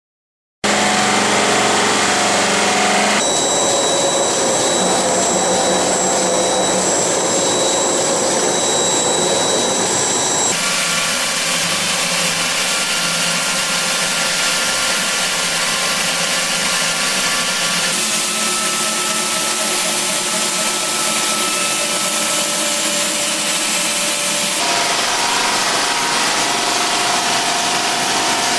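Robotic CNC polishing machines running, their buffing wheels working stainless steel parts: a loud, steady mechanical noise with a steady motor whine. It starts about half a second in and changes abruptly several times as the footage cuts from one machine to another.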